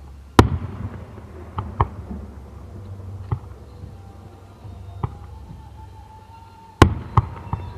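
Aerial firework shells bursting about 500 m away: two loud booms, one about half a second in and one near the end, with several fainter bangs between, over a steady low rumble.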